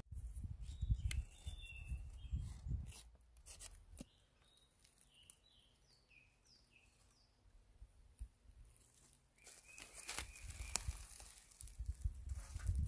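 Rustling and knocking of wooden sticks and string being handled close to the microphone, in two spells at the start and near the end. In the quieter middle, a bird sings a run of short, falling chirps.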